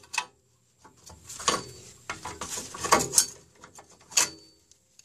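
Metal clinks, clicks and scrapes of a car's parking-brake shoes and their return springs being pried and pulled off the backing plate, in a few short clusters, the sharpest about four seconds in.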